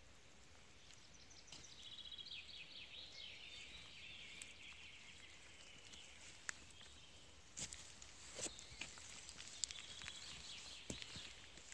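Faint footsteps on stony, twig-strewn forest ground, with a few sharper crunches and snaps in the second half. Steady, rapid high-pitched chirping runs behind them throughout.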